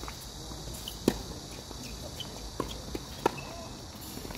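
Tennis balls struck by rackets and bouncing on a hard court during a doubles rally: a few sharp pops, the loudest about a second in and another just after three seconds.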